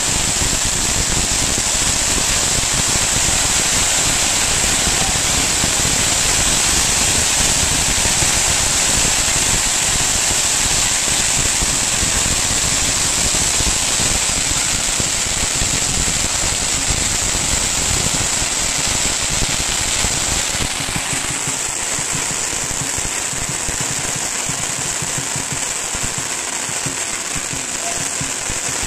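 Long strings of Chinese firecrackers going off in a rapid, continuous crackle of small bangs. The crackle thins out about two-thirds of the way through as the strings burn down.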